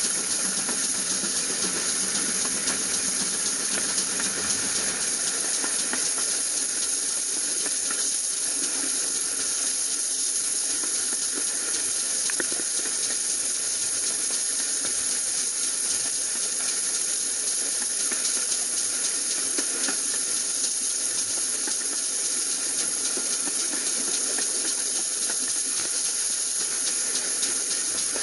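Steady rushing hiss of a train under way behind a GWR Manor-class steam locomotive, heard from a carriage window just behind the engine. Faint ticks come and go, but no distinct exhaust beats stand out.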